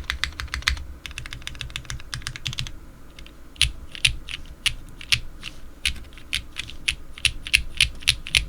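Typing on a Capy60 custom mechanical keyboard with linear Cherry MX Black switches, a full carbon-fibre plate and GMK keycaps. Fast runs of keystrokes give way after a short pause, about three seconds in, to slower, separate keystrokes.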